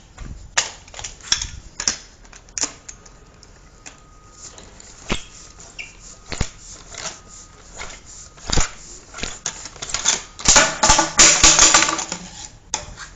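Black ABS drain pipe being handled and cut: scattered sharp clicks and knocks, then about two seconds of dense rasping near the end as the cut goes through.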